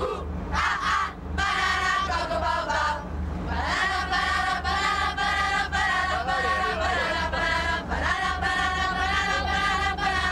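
A group of children and teenagers singing together in chorus, in long held notes with short breaks between phrases.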